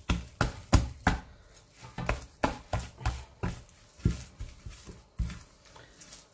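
Wet hands slapping and pressing a soft, sticky whole-wheat dough: a run of short, wet slaps, roughly two a second, some louder than others.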